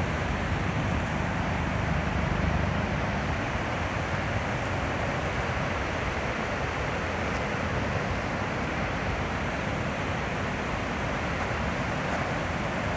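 Steady rush of a large waterfall running at heavy spring flow, a low rumble under an even hiss of falling water.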